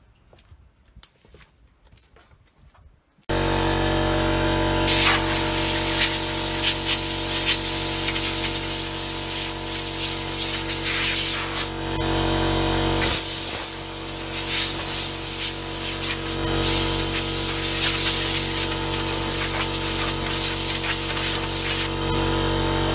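An air compressor starts about three seconds in and runs with a steady hum, while a compressed-air blow gun hisses in three long blasts, blowing sanding dust off a wooden board.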